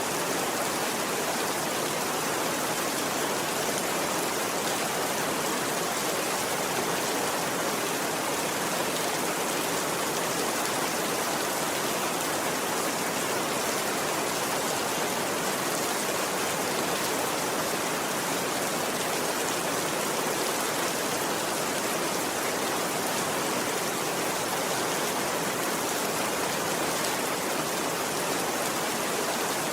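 Steady rain falling, an even hiss that doesn't let up or change.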